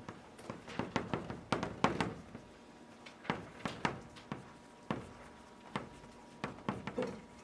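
Chalk writing on a chalkboard: a run of irregular sharp taps and short scratches, about three a second, as characters are written stroke by stroke.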